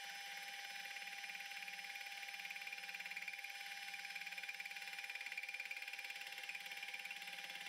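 Warco WM240B benchtop lathe running with its faceplate set up as a fly cutter, skimming the sawn end of a mild steel bar. It makes a steady high whine with a faint, even, repeating pulse underneath.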